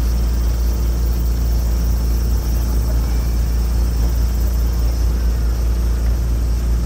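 A narrow-gauge train's engine running steadily as the train moves along the track: a constant low drone.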